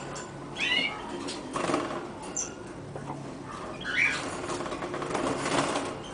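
Young Gloster canaries fluttering and hopping about a wire cage, with short flurries of wingbeats and a few brief chirps, one about a second in and another near four seconds.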